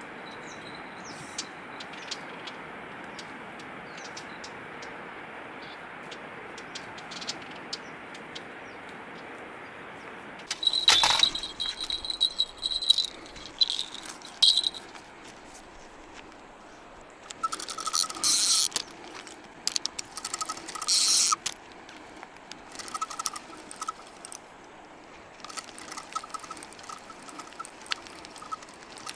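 Steady outdoor background hiss. From about ten seconds in it gives way to clicks, rattles and scraping as fishing tackle and a spinning rod are handled, with the spinning reel being wound in short spells.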